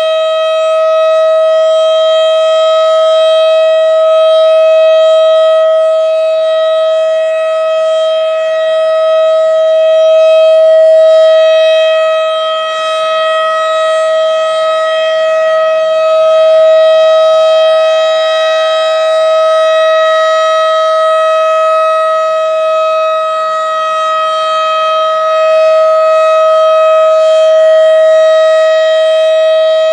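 Federal Signal Model 7 civil defense siren sounding a steady, unwavering tone during its monthly test, its loudness slowly swelling and easing.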